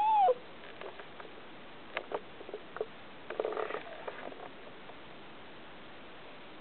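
Yorkshire terrier cross dog whining once, a short high whine that drops away just after the start, as she wants to be let through the door. A few light clicks and a brief scuffling rustle follow about halfway through as she moves.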